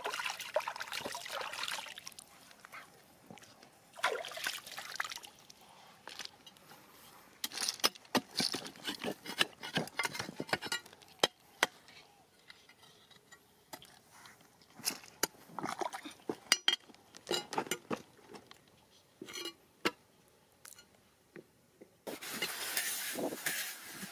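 Water splashing and dribbling in a shallow stream in irregular bursts as hands scoop and pour it and boots wade, with scattered sharp clicks of stones knocking. About two seconds before the end a steady hiss of a fine water spray starts.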